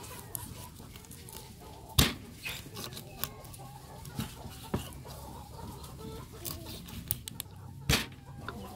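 Large kitchen knife chopping through fish into a wooden chopping board, giving sharp knocks: two loud ones, about two seconds in and near the end, with lighter taps between. Chickens cluck in the background.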